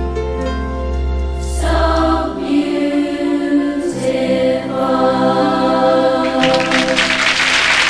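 A choir sings a song with instrumental backing, ending on long held chords. Applause breaks out about six and a half seconds in and carries on over the final chord.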